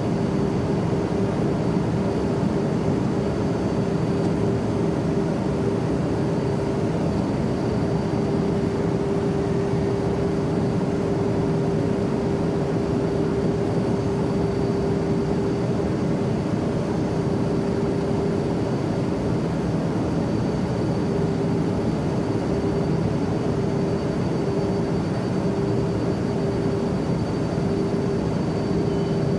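Airplane cabin noise: a steady, even rush of engine and air noise with a constant hum running through it.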